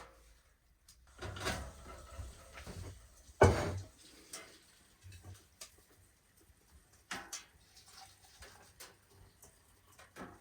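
Scattered knocks and clunks in a small room, the loudest a sharp knock about three and a half seconds in, with another clear clunk about seven seconds in.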